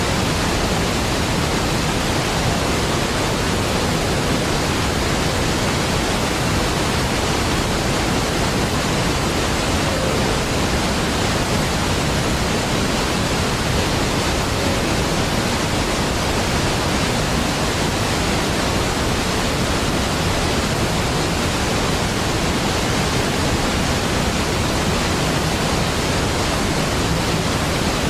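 Large waterfall, Niagara Falls, pouring in a deep, steady, unbroken rush of falling water.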